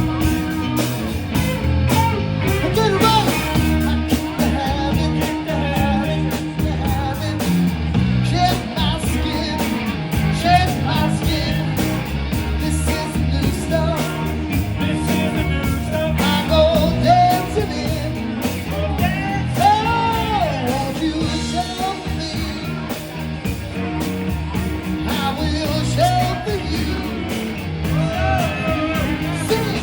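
Rock band playing a song, with a singer's voice over guitar.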